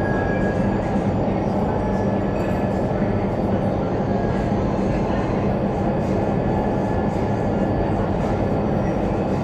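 Indoor skydiving vertical wind tunnel running, its fans driving a steady roar of air up through the flight chamber, with a low steady hum underneath.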